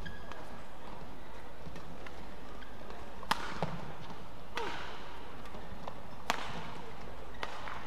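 Badminton rally: rackets strike the shuttlecock with sharp cracks, three loud hits about a second and a half apart, the last the loudest, among lighter taps and footfalls on the court, over a steady hall hum.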